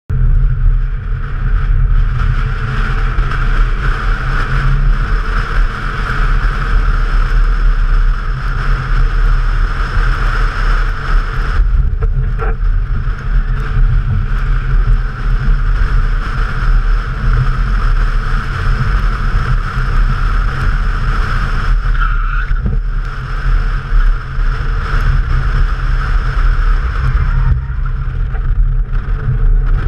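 Toyota Corolla driven hard on a wet track, heard from a camera mounted outside on the car body: heavy wind buffeting over the engine and tyre noise. The engine sound drops away briefly about twelve seconds in, again a little after twenty seconds and near the end, as the driver eases off the throttle.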